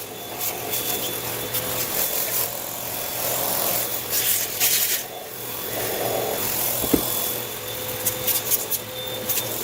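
A small electric motor running at a steady pitch, with rubbing and scraping noise and a few sharp clicks over it.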